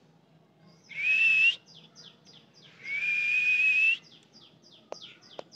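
A person whistles two long, slightly rising, breathy notes, the first brief and the second about a second long. Behind them a small bird chirps steadily, about three short falling chirps a second, and two sharp clicks come near the end.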